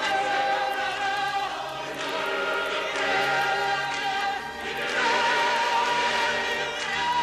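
A choir singing long held chords that change every second or two.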